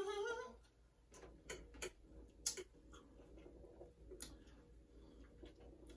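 Quiet eating: a handful of faint, sparse sharp clicks and crunches as nachos are eaten with a fork from a plate.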